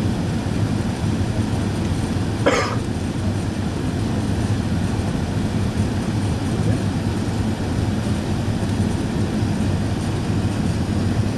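Steady low rumble inside the cabin of a four-engined Airbus A380 on its descent to land: engine and airflow noise. One brief sharp sound cuts through about two and a half seconds in.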